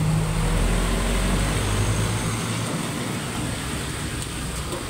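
Gas wok burner running under a wok of butter and salted egg yolk that is foaming and sizzling, a steady hissing noise; the low rumble of the burner drops away about halfway through.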